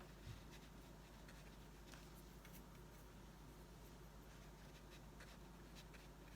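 Faint, scattered light ticks and scratches of a watercolour brush dabbing on paper, over a steady low room hum, with one soft low bump just after the start.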